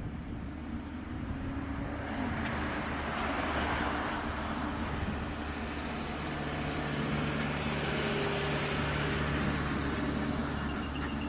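Boeing 777F freighter's GE90 turbofan engines running as the jet rolls past on the ground: a steady jet rumble and hiss that swells gently, with a low steady hum joining about six seconds in.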